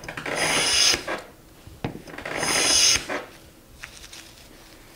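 Harbor Freight No 33 bench plane, its sole flattened and blade freshly sharpened, taking two cutting strokes along a poplar board, each under a second, with a short knock between them. It cuts cleanly, curling off thin shavings.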